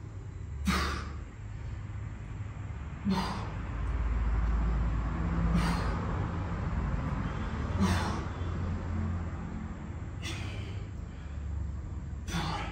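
A man breathing hard, one short forceful breath about every two and a half seconds, six in all, in time with the reps of dumbbell Romanian deadlifts. A low steady rumble runs underneath.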